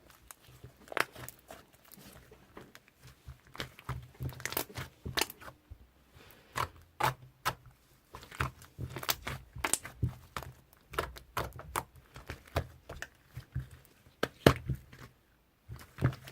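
Slime being squeezed and stretched by hand, giving irregular crackling and popping clicks, some sharper and louder than others.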